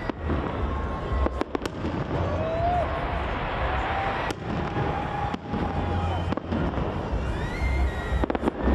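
Festive fireworks salute: a dense, continuous crackle of bursts with sharper bangs standing out, and a few thin whistling tones over it.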